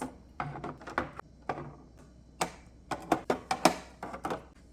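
Eggs being set into a plastic refrigerator door egg holder: a run of irregular light taps and clicks, thicker in the second half.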